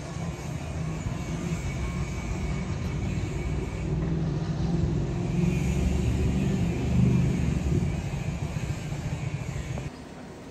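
Low, steady rumble of the three-cylinder Pacific steam locomotive 35028 'Clan Line' and its train approaching round a curve, swelling in the middle and breaking off abruptly near the end.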